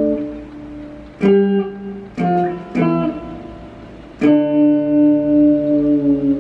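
Electric guitar played by hand: a ringing chord dies away, then three picked notes come in quick succession, and from about four seconds in a chord is held, wavering in loudness and bending slightly in pitch near the end.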